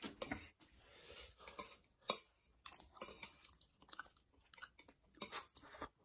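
Eating sounds: chewing, with metal chopsticks tapping and scraping on plates in short irregular clicks. The sharpest click comes about two seconds in.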